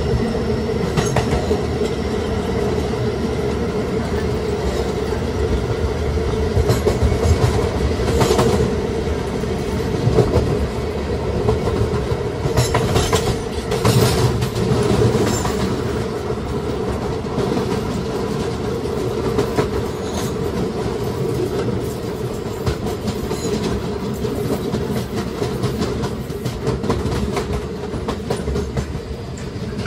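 A Kawasaki R211A New York City subway car running at steady speed, with the steady hum of its Alstom OptONIX IGBT-VVVF traction drive. Over the hum the wheels clack over rail joints, with louder rattles about a third of the way in and again around the middle.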